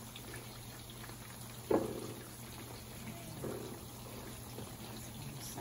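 Cornstarch-coated chicken pieces shallow-frying in a pan of oil, sizzling and bubbling steadily over high heat, the oil cooled by the load of chicken. A short, louder sound stands out about two seconds in.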